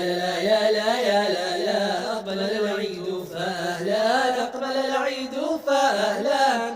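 Male voices chanting a melodic line without instruments, in the vocal-effects style of an a cappella Arabic nasheed, with the pitch gliding up and down continuously.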